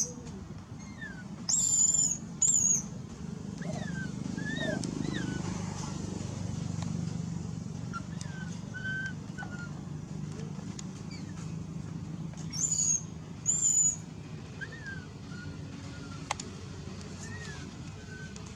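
Animal calls: two pairs of loud, short, high-pitched calls, about two seconds in and again about twelve seconds in, with softer rising-and-falling chirps between them over a low steady hum.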